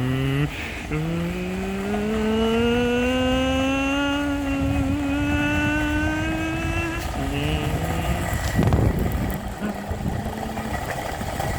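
A person's voice imitating an MRT train's traction motors pulling away: a hummed tone that climbs steadily in pitch for about six seconds, then breaks off, followed by shorter, lower, steady hums.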